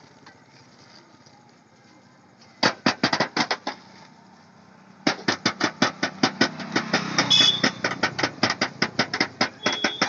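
Small plastic toy drum beaten with a pair of ball-tipped sticks. A short burst of quick strikes comes a few seconds in, then after a pause, steady rapid drumming at several strikes a second.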